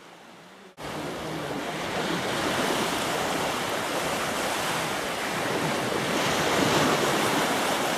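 Steady rush of small waves breaking and washing up at the edge of a sandy beach, mixed with wind. It sets in suddenly about a second in.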